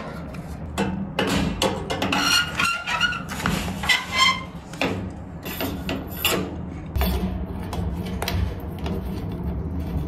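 Handling noise from refitting a gas water heater's ignition assembly: irregular clicks, knocks and rubbing of metal parts and wires.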